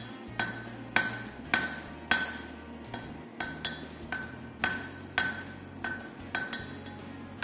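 Hand hammer striking steel on an anvil while forging a scabbard chisel: steady blows about two a second, each with a bright metallic ring.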